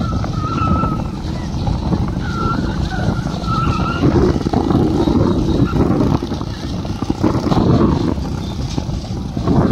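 Several motorcycles running and revving together close by, with short high wavering calls from people in the first four seconds.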